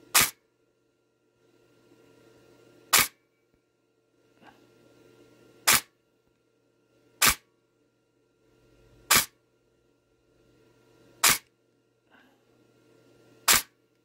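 Tokyo Marui Next Gen Recoil Shock airsoft gearbox with a Gate Titan control board, dry-fired on the bench in semi: seven single shots, each a short sharp motor-and-piston cycle, about two to three seconds apart. Every trigger pull gives just one shot, so the intermittent burst/full-auto fault on a slow pull does not show here.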